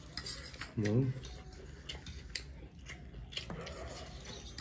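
Forks and spoons clicking and scraping on plates while two people eat chow mein, with noodle slurping. A short voiced sound comes about a second in.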